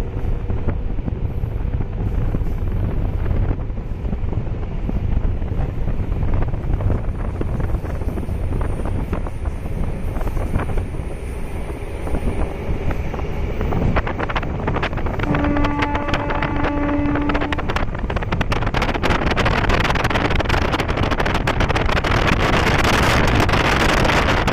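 MEMU electric multiple-unit train running along the track: a steady rumble of wheels on rail with wind on the microphone. About fifteen seconds in, a horn sounds once for about two seconds, and near the end a hissing rush grows louder.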